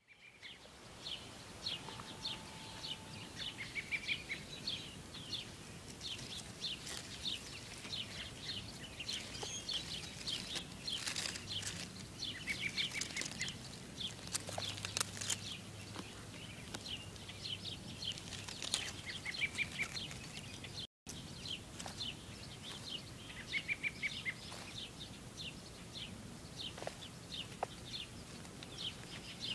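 Wild birds chirping and singing outdoors: dense short high chirps throughout, with a brief warbled phrase recurring every several seconds. The sound cuts out for an instant about two-thirds of the way through.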